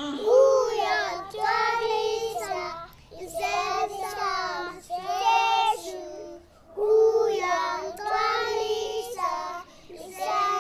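A young child singing a song in short phrases separated by brief pauses, in a high voice.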